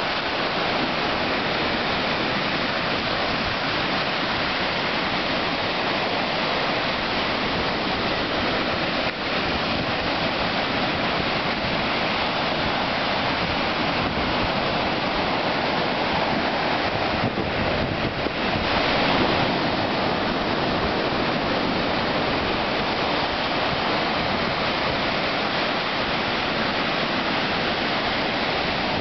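Ocean surf breaking offshore and washing up a sandy beach: a steady rush of waves that swells a little louder about two-thirds of the way through.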